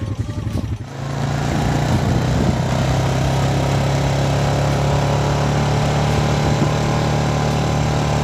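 An engine running steadily at a constant speed: a steady droning hum with a hiss over it, starting about a second in.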